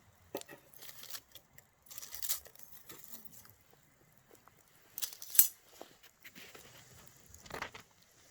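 Campfire wood crackling and popping in irregular sharp snaps, with one loud pop a little past halfway.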